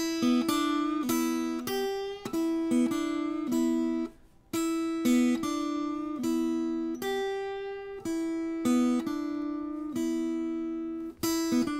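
Acoustic guitar picking a single-note blues lick in E that mixes open strings with a bent note at the third fret. The short phrase is played over several times, with a brief break about four seconds in.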